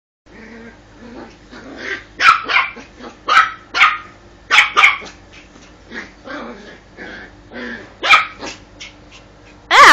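Dog barking in short, loud bursts, several in quick pairs, with softer low vocal sounds between them and a rising yelp near the end.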